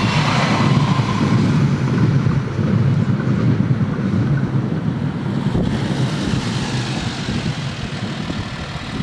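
A Breng GTW-D diesel railcar fading away in the first second, then a steady low rumble that slowly dies down while the crossing barriers rise.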